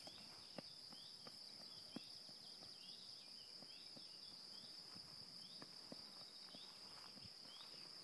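Faint, steady high-pitched insect trill, with short repeated chirps about twice a second and a few soft clicks.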